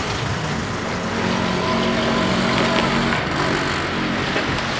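Road traffic passing close by: a car's engine running as it drives across the level crossing, with a steady hum, a little louder from about one second to four seconds in.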